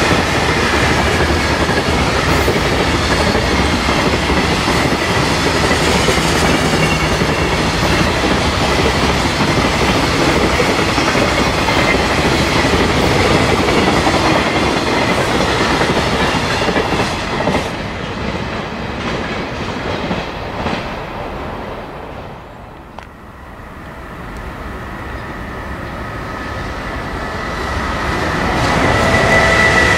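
Long container freight train of flat wagons running past at speed: steady rumble and clickety-clack of wheels over the rail joints, dying away from about 17 seconds in as the last wagons clear. Near the end the next electric-hauled freight train approaches, growing louder with a high steady whine.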